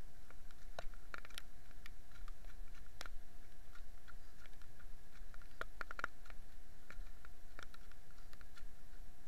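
Raindrops striking a small camera's housing in heavy rain: irregular sharp ticks and taps, several close together around the middle, over a faint steady whine.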